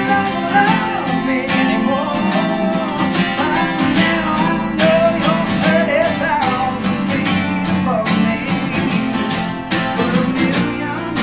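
A country band playing a song led by strummed acoustic guitar, with a melody that bends in pitch over a steady accompaniment.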